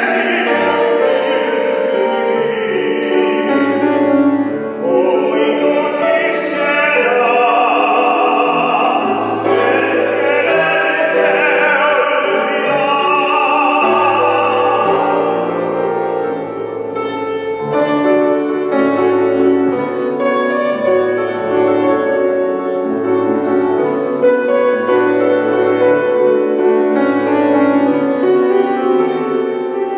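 A man singing a ballad in an operatic style, accompanied by a grand piano. His voice stops about halfway through, and the piano plays on alone.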